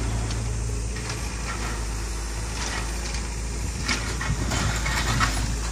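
A heavy machine's engine running steadily at low revs, with scattered clicks and knocks over it.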